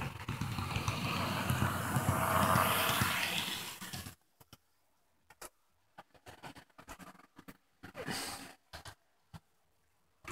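HO-scale model train running on its track: a steady low hum and running noise from the small locomotive. It stops abruptly about four seconds in, leaving only faint scattered clicks and a brief rustle.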